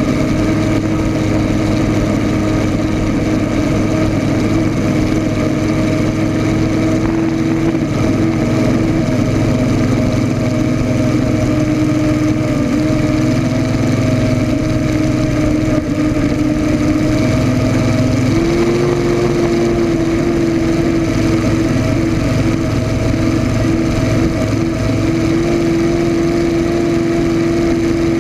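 Rolls-Royce Griffon V12 aircraft engine of the 1980 Miss Budweiser unlimited hydroplane running at speed, heard close from on board. Its note is steady, then steps up a little in pitch about two-thirds of the way through and holds there.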